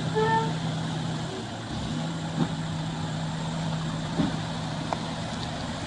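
Heavy construction machine's engine running steadily, with a brief dip about a second and a half in and a few short knocks later on.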